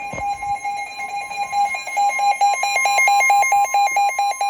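Emergency alert attention signal: a loud, steady high tone with a second beep pulsing rapidly over it, about five times a second.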